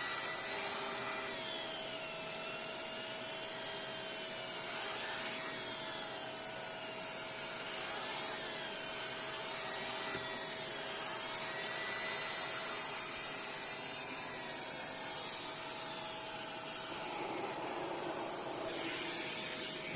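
Shark Powered LiftAway upright vacuum running steadily with a Dyson turbo tool fitted, over a steady hum and hiss of rushing air. The turbo tool's spinning brush adds a whine that rises and falls in pitch as it is worked.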